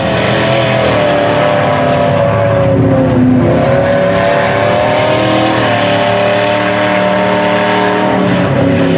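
Lifted mud truck's engine running hard at high revs as it drives through a deep mud pit. The pitch dips briefly about three seconds in, climbs back and holds.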